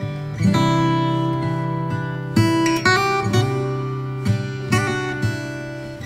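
Background music: an acoustic guitar strumming and picking chords, with a new chord struck every second or so.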